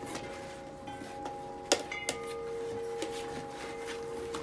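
Whippet puppies scrambling in and around cardboard boxes: cardboard scraping, rustling and bumping under their paws, with one sharp knock about a second and a half in. A faint steady hum runs underneath.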